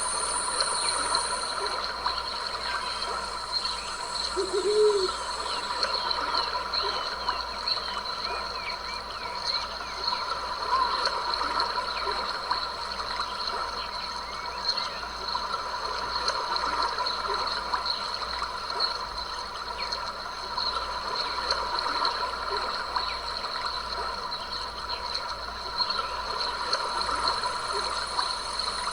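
A stream trickling and gurgling over rocks, with steady high insect chirring in several pitches laid over it. A brief low call comes about five seconds in.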